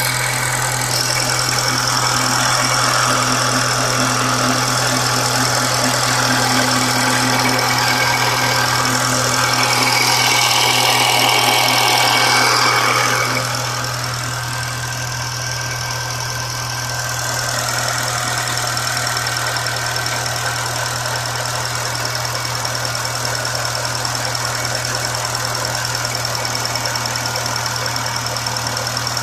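Engine idling with a steady high-pitched whine over its low hum: an unusual noise from the engine. It swells for a few seconds near the middle, drops back sharply, then holds steady.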